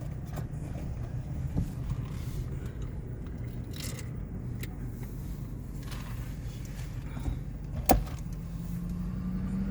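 Car moving at low speed, a steady low rumble of engine and road noise heard from inside the cabin. A sharp click comes about eight seconds in, and the engine note starts to rise near the end.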